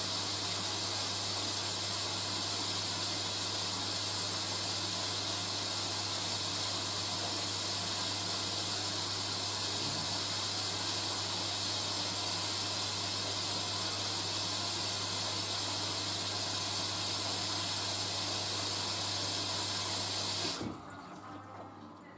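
Hoover A3060 washing machine filling with water for its final rinse: a steady rush of water through the inlet with a low hum, which cuts off suddenly near the end as the fill stops.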